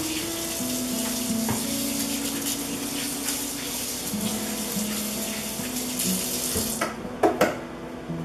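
Kitchen tap running into the sink, a steady hiss of water that shuts off about seven seconds in, followed by two sharp knocks.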